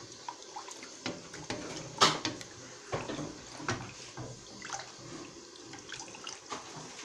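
Wooden spoon stirring thick béchamel sauce in a stainless steel saucepan: wet sloshing and scraping, with irregular knocks of the spoon against the pan, the loudest about two seconds in.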